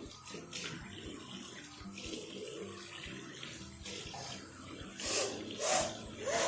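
Tap water running into a wash basin, with short forceful nose blows in quick succession near the end as the nose is cleared out over the sink.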